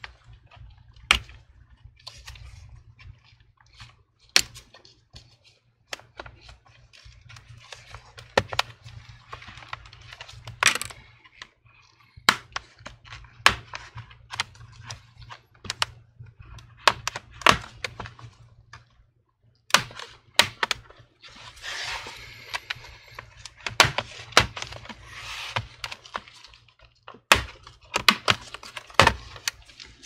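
Metal prying tool worked around the seam of a Lenovo Yoga 6 laptop's bottom cover: a string of sharp clicks and snaps as the cover's clips release, with scraping as the cover is worked loose.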